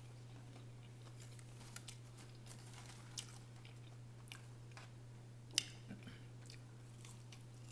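Quiet close-up chewing of a McDonald's Chicken McNugget, with scattered small clicks and crinkles of food packaging, the sharpest about five and a half seconds in. A steady low hum runs underneath.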